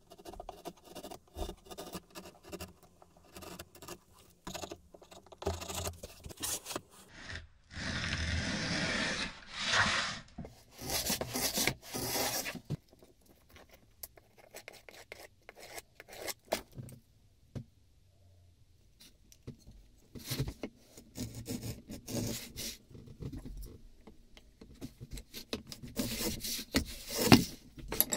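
Hand tools working wood: a small blade scraping and picking in the groove of a wooden plane body, then a metal hand plane run on a shooting board, shaving thin mahogany strips in hissing strokes of a second or two. Short scrapes, taps and knocks come between the strokes, with the sharpest knock near the end.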